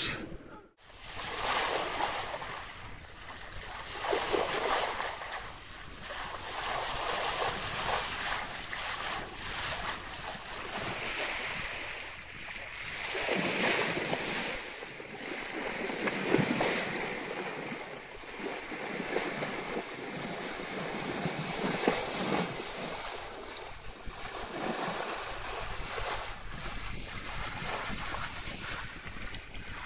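Water swishing and splashing along the bow and hull of a large sailing yacht moving through a calm sea. It swells and fades every two to three seconds, with some wind on the microphone.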